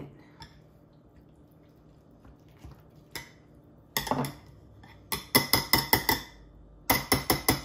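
Metal potato masher pressing avocado in a glass bowl, its wires clinking against the glass. The clinks start about four seconds in and come in quick runs of strokes, about six a second.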